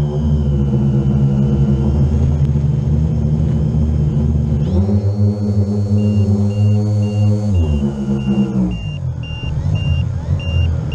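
A quadcopter drone's motors and propellers whining steadily, heard through its own onboard camera. The pitch jumps up about five seconds in as the drone climbs and drops back about three seconds later. From about six seconds in, a high beep repeats two or three times a second.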